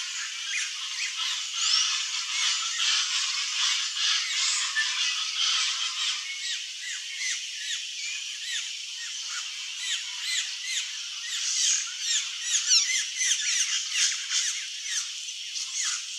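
Red-rumped caciques calling: a dense, continuous stream of overlapping high chirps and quick up-and-down whistled notes, with sharper, louder notes from about ten seconds in.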